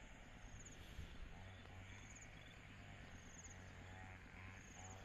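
Faint outdoor ambience: an insect chirps in short high pulses, repeating about every second and a half, over faint wavering calls lower down.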